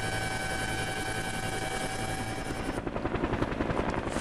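Helicopter turbine whine and rotor drone heard inside the cabin, steady with fixed high tones. About three seconds in this gives way to the rapid, even beating of the main rotor blades of a helicopter flying past outside.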